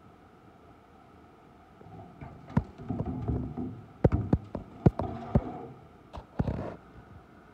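Irregular sharp knocks and clicks, about half a dozen, with short bouts of rubbing noise, starting about two seconds in and dying away near the end.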